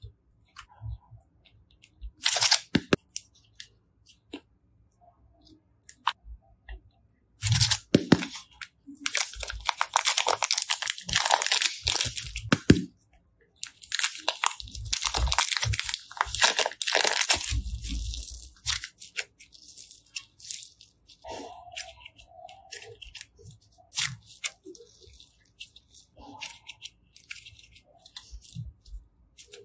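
Soft, clay-like slime being folded and squeezed by hand, giving off runs of quick crackling clicks. The crackling is densest through the middle and thins to scattered clicks near the end.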